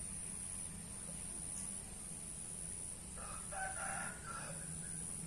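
A rooster crowing once, starting a little after three seconds in and lasting about a second and a half.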